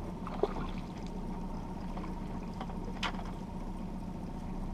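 Boat's outboard motor running with a steady low hum at trolling speed. A sharp click comes about half a second in, and a short sharp noise about three seconds in.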